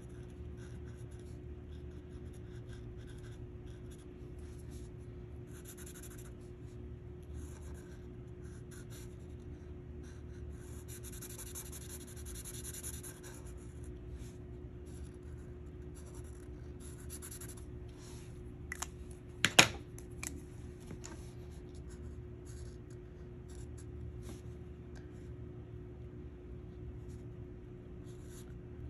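Sharpie-style felt-tip marker scratching across paper in short coloring strokes, with a longer run of strokes a little before halfway. A single sharp tap about two-thirds of the way through is the loudest sound.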